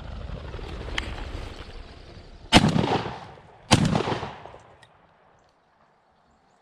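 Two shotgun shots a little over a second apart, each followed by a long rolling echo that dies away within about a second.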